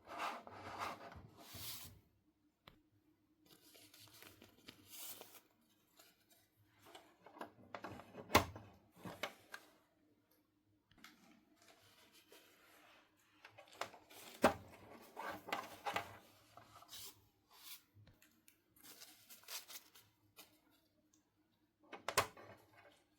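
Hands unpacking a toy playset: quiet, intermittent bursts of tearing and crinkling packaging, with a few sharp clicks scattered through.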